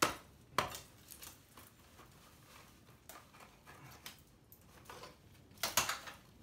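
Cement render being chipped and scraped off a stone wall with a hand tool. Irregular sharp knocks and scrapes, with a louder cluster of them near the end.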